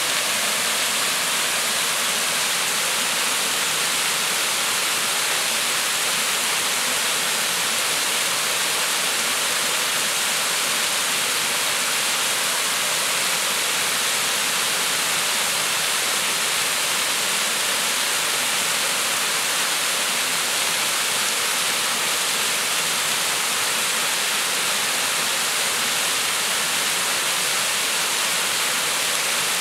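Small woodland waterfall, a narrow stream of water pouring down stepped rock ledges into a shallow pool: a steady splashing rush, weighted toward the higher register.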